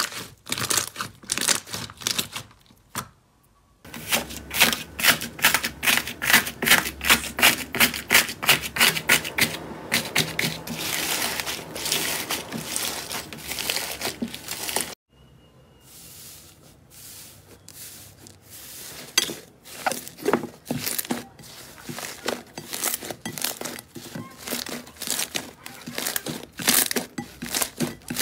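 Hands squeezing and kneading slime: fast runs of sticky crackling, clicking and popping as trapped air bursts, in three clips joined by abrupt cuts. In the middle clip the slime is packed with foam beads.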